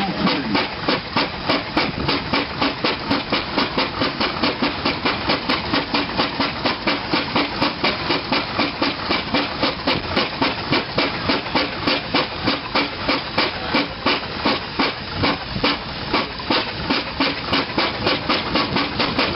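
1874 Fowler steam ploughing engine working its cable winch under load, the exhaust beating sharply and evenly up the chimney at about four beats a second.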